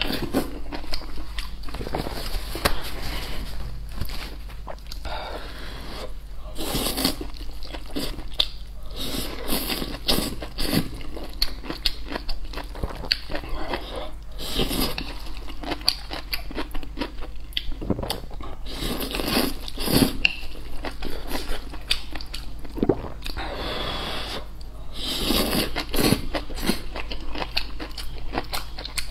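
Close-miked eating sounds: wide flat noodles in sauce slurped up in several loud bursts, with wet chewing, smacking and mouth clicks between them.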